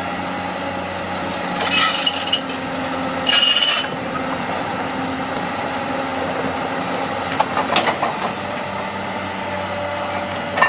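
An excavator's engine running steadily with a thin high whine, broken by two short rasping noises about two and three and a half seconds in and a sharp click near the end.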